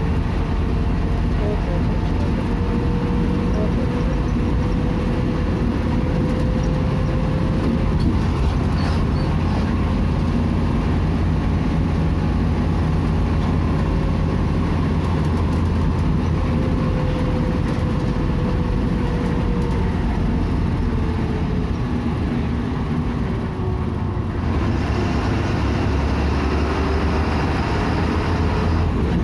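Bus in motion heard from inside the cabin: steady engine and road rumble with a faint whine that drifts slightly up and down in pitch.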